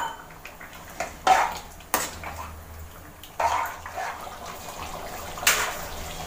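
Water being poured into a curry in an aluminium kadai, with several short, sharp knocks against the pan.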